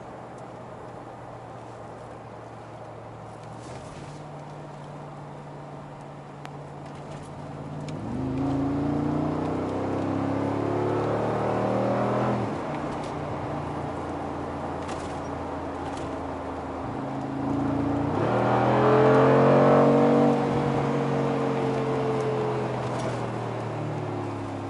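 Twin-turbo 4.0-litre V8 of a 2019 Mercedes-AMG G63, heard from inside the cabin: cruising steadily, then accelerating hard twice, about eight and eighteen seconds in, the engine note climbing and then dropping away each time. The second run is the louder.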